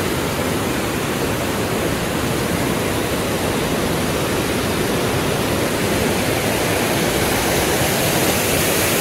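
Water let out through a dam gate rushing and cascading over rocks in a white-water channel: a loud, steady rush with no break.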